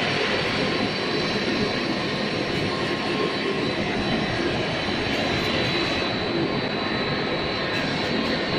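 Maxi roll band saw cutting machine line and its conveyors running: a steady mechanical din with a thin, high steady whine over it.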